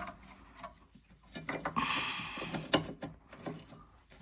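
Metal clicking and scraping as a parking brake cable is pushed and worked free of its mount at the rear brake caliper, with a louder click a little before the end.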